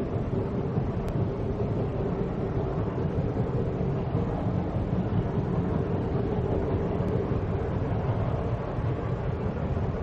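Black Hills Central Railroad steam train running: a steady rumble and rush with a faint steady tone underneath and no clear beat.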